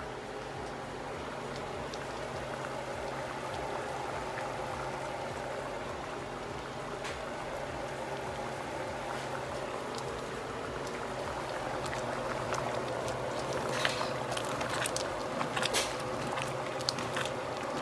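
A pot of khichuri (rice and lentils with vegetables) bubbling on a gas burner, over a steady low hum. In the last several seconds a spoon stirs it, with clicks and scrapes against the pot.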